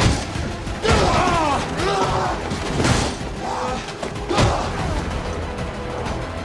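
Fistfight sound effects: several heavy hits and thuds about a second apart, with men grunting and crying out, over dramatic background music.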